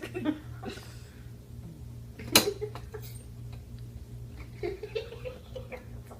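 Dog crate door and latch knocked once, sharply, about two and a half seconds in, as the latches are worked from inside the crate; soft giggles and short vocal sounds around it.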